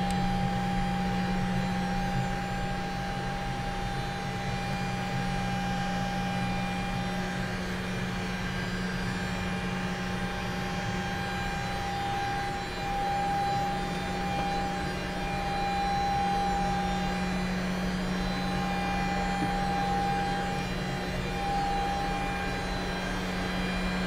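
Steady machinery hum inside an Airbus A300's avionics compartment: a low drone with a thin, steady high whine above it.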